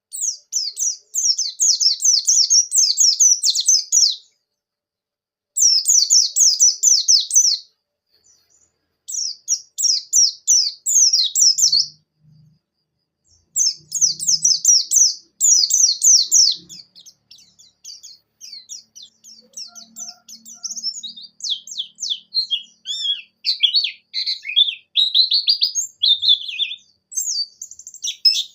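A buxtoni white-eye (pleci) singing: fast runs of high, quick down-slurred notes. The first three phrases are a few seconds long with short pauses between them; from about halfway through the song runs on almost without a break, dipping lower near the end.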